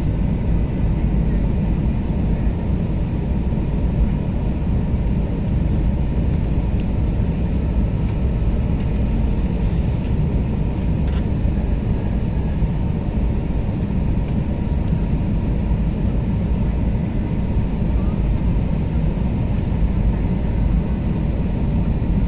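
Steady low rumble of airliner cabin noise during the landing approach, with a faint steady hum over it.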